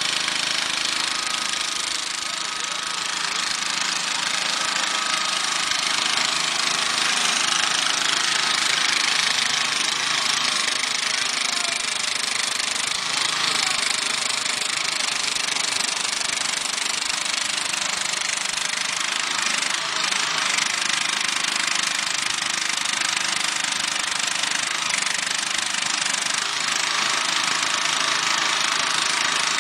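Homemade 18 hp four-wheel-drive tractor's engine running steadily under load while it drives and works its hydraulic front-end loader.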